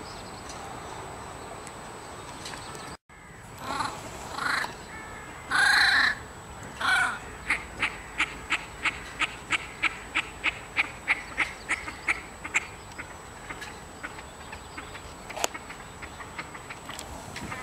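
A bird calling: a few loud harsh calls, then a long quick run of short calls at about three or four a second that grows fainter towards the end.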